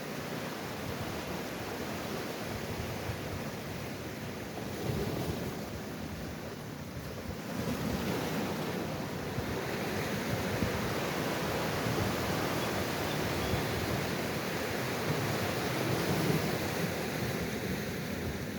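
Sea waves surging and washing in a continuous rush of surf, swelling louder about eight seconds in.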